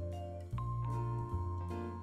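Background music: held melody notes over a steady bass line that changes note about every three quarters of a second.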